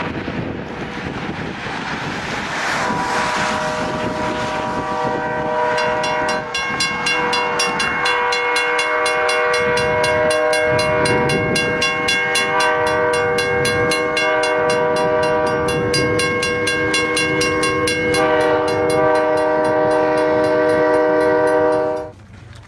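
Locomotive air horn sounding a long, steady multi-note chord, over a rushing noise, with fast, even clanging joining about six seconds in. It cuts off suddenly near the end.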